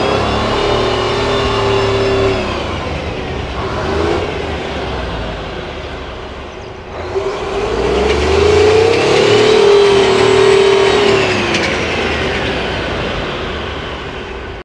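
A Marlin airport fire tender's 18-litre V12 Detroit Diesel engine, twin-turbocharged and twin-supercharged, is being revved. Twice the revs climb, hold for a few seconds and fall back, with a short blip of the throttle in between.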